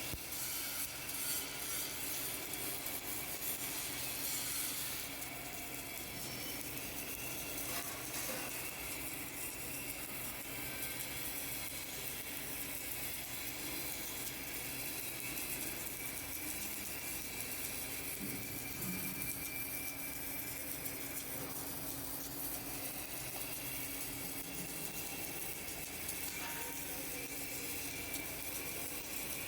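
Automatic submerged arc welding running: a steady rough hiss with a faint hum underneath.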